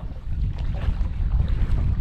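Wind buffeting the microphone: a gusty low rumble.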